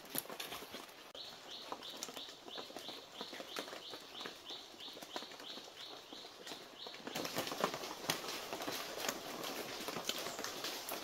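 Footsteps rustling and crackling through dry banana leaves and forest litter, louder and denser from about seven seconds in. A high pulsing call repeats about three times a second through the first half.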